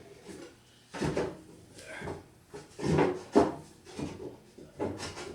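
A handful of irregular clunks and scrapes: heavy metal parts and pry bars being shifted by hand while a machine lathe is levered into place.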